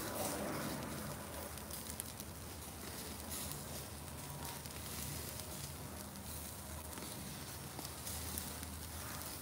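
Pork loin chops sizzling steadily on a grill grate over hot lump charcoal, with scattered small crackles and pops.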